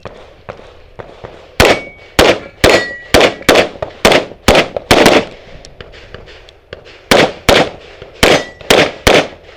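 Open-division competition pistol fired in rapid strings on a USPSA stage: about eight shots, a pause of about two seconds, then about six more. Steel targets ring after some of the hits.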